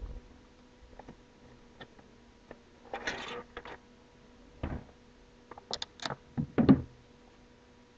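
Cardboard packaging being handled: a low thump at the start, a brief rustle about three seconds in, then a string of taps and knocks as box parts and inserts are lifted and set down. The loudest knocks come near the end.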